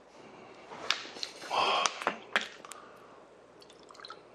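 A plastic water bottle being handled and opened: a few sharp clicks and a short crinkling rush, then quiet drinking.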